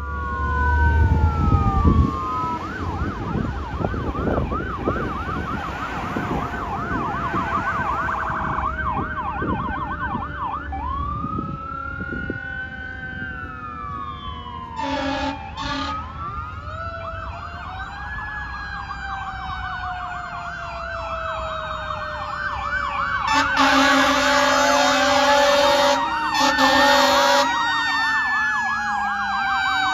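Fire engine siren sounding, switching between a fast yelp and a slower rising and falling wail. The truck's air horn blasts briefly about fifteen seconds in, then again for several seconds a little past the twenty-second mark. A low engine rumble is loudest in the first two seconds.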